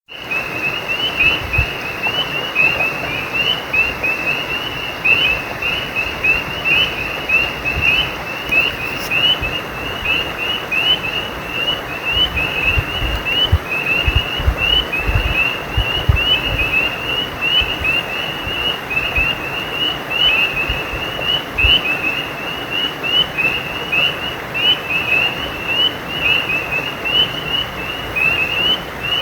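Frogs calling in a dense, continuous chorus of short, high chirps over the steady rush of a stream.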